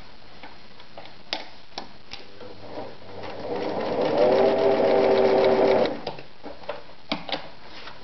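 Singer Starlet 354 sewing machine speeding up and stitching through leather with a rapid, even rhythm for about two seconds, then stopping abruptly. A few sharp clicks before and after.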